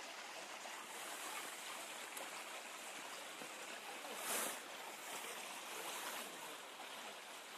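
Steady rushing of a mountain stream, briefly louder about halfway through.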